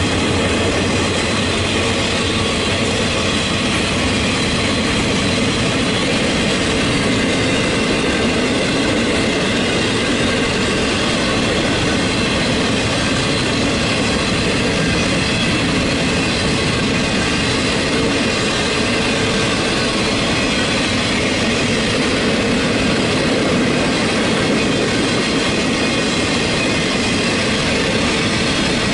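A string of empty freight boxcars rolling past on steel wheels, a steady loud rumble and clatter of wheels over the rail. Thin high squealing tones from the wheels run over it.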